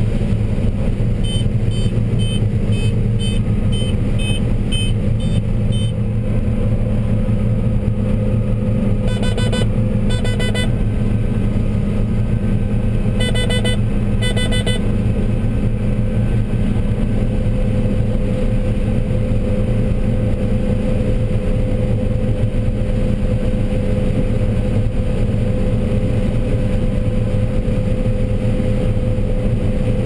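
John Deere 9770 combine harvesting corn, heard from inside the cab: the steady drone of the diesel engine and threshing machinery under load. Over it, short high electronic beeps from the cab come about twice a second for several seconds near the start, then two pairs of longer beeps follow later on.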